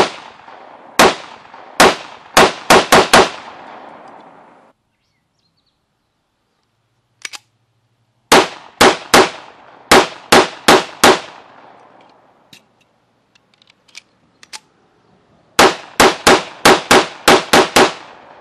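A .45 ACP Ruger SR1911 pistol fired in three quick strings of about seven shots each, a few seconds apart, the shots coming roughly two to three a second. There are faint clicks in the pauses between strings.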